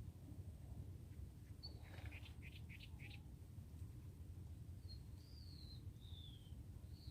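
Wild bird calling over a low steady background rumble. A quick run of short chirps comes about two seconds in, then from about five seconds a series of thin whistled notes, each falling in pitch and stepping lower.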